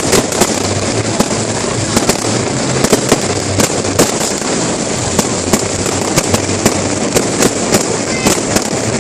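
Aerial fireworks display: a rapid, irregular run of sharp bangs and pops, several a second, over a continuous crackle.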